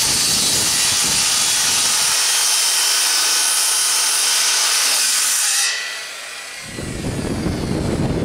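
Corded circular saw cutting through an untreated wooden board with a steady high whine, then let go a little over five seconds in and spinning down.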